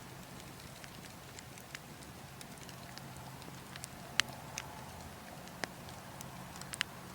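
Burning wood logs crackling, with a handful of sharp, irregular pops (the loudest about four seconds in) over a steady low rush of wind.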